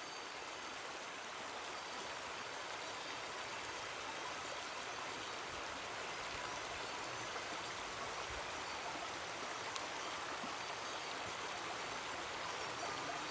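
Steady rushing of a fast-flowing mountain river or stream, an even wash of water noise with no pauses or changes.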